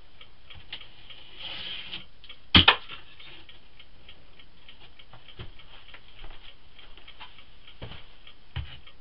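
Knocks and clicks from closet-demolition debris and tools being handled at a plastic tub. There is light, irregular clicking throughout, and a sharp double knock about two and a half seconds in.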